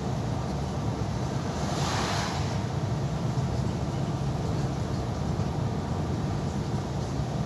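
Steady engine and tyre noise of a road vehicle driving along, heard from inside its cab, with a low drone. About two seconds in, a brief whoosh swells and fades.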